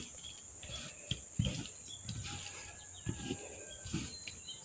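Soft, faint thuds and rustles of a hand tossing peeled orange segments with spices on a banana leaf, a few separate knocks, with faint chirping in the background.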